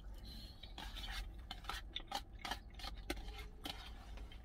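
Eating sounds: a plastic spoon scraping and clicking irregularly against a plastic food container, with chewing.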